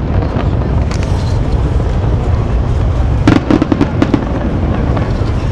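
Aerial firework shells bursting: a faint crack about a second in, then a rapid cluster of sharp bangs and crackles about three seconds in, over a steady low rumble.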